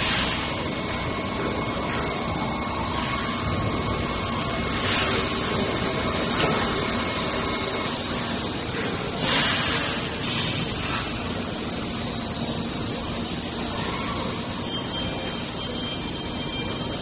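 CDD20-30 electric pallet stacker's hydraulic lift running as it raises a heavy load on its mast and later lowers it: a steady motor drone with hiss, with short louder rushes of noise about five and nine seconds in.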